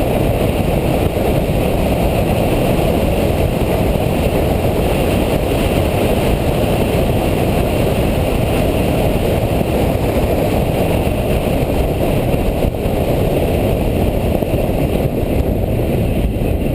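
Steady engine, road and wind noise inside the cabin of a Nissan Nismo car while driving.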